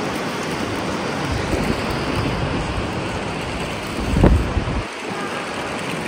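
Strong wind blowing over the microphone: a steady rush with a heavier low buffeting gust about four seconds in.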